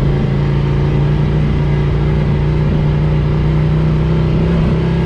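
Ducati Scrambler Cafe Racer's air-cooled L-twin engine running under steady throttle while riding, its pitch holding steady and creeping slightly higher near the end.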